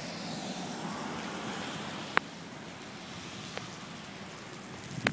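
Steady roar of storm wind and rain during a tornado, with a sharp crack about two seconds in, a fainter one a little later and a knock near the end.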